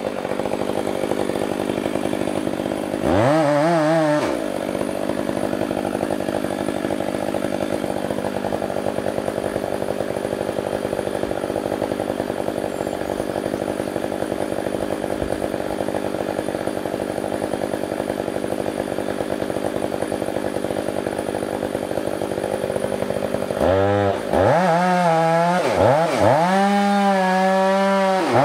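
Stihl 500i fuel-injected two-stroke chainsaw running steadily under load as it cuts into the trunk of a big old-growth spruce in a felling cut. The engine pitch rises and falls once about three seconds in, and near the end the revs swing up and down repeatedly.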